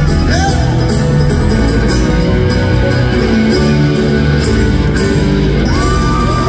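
Live bluegrass band playing a fast instrumental passage: acoustic guitar, banjo, mandolin and fiddle over upright bass, amplified through an arena sound system.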